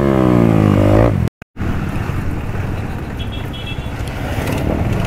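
KTM Duke 250's single-cylinder engine revving, its pitch sagging and rising, then breaking off abruptly a little over a second in. After that comes a lower, rougher running sound of the motorcycle rolling over a cobbled track.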